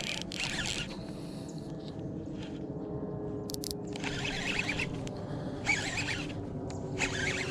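A hooked large bass being fought and reeled in: short, irregular bursts of rasping and splashing noise, five or so, over a faint steady hum.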